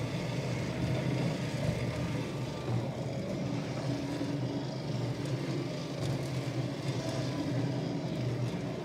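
The dome-drive motor of a homemade R2-D2 droid, a small geared DC motor, running steadily with a low hum as it spins the dome on its slip ring.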